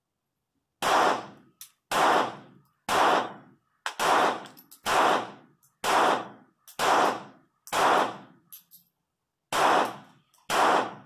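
.25 ACP pocket pistol firing ten shots at about one a second, with a short pause before the last two. Each shot is followed by a brief echo off the range shelter's roof.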